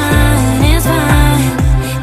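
Background pop/R&B music with a steady beat.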